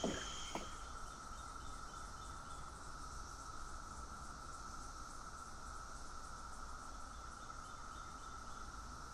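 Evening chorus of crickets chirring steadily, with a couple of knocks right at the start.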